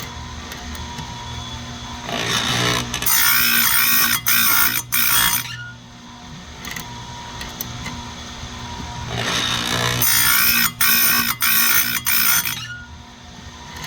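Chainsaw chain grinder running with a steady hum. Twice its wheel is brought down onto the chain's cutters in a run of quick grinding strokes, each about half a second long with short breaks between.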